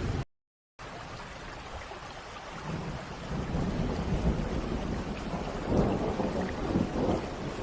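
Steady rain with rolling thunder: a low rumble builds about two and a half seconds in and is loudest about six seconds in. The sound cuts out completely for about half a second near the start.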